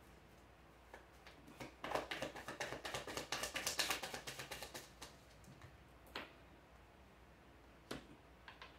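A deck of tarot cards being shuffled by hand: a quick run of soft flicking clicks lasting about three seconds, then a few single taps, the last as a card is laid on the table near the end.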